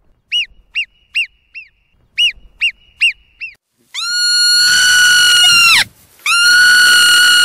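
Marmot whistling calls: two quick series of four short, sharp chirps, then two long, steady high whistles.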